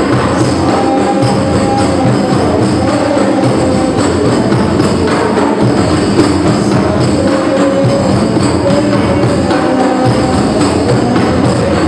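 Hadrah ensemble of rebana frame drums and a large bass drum playing a fast, steady sholawat rhythm, with a voice singing held notes over the drumming.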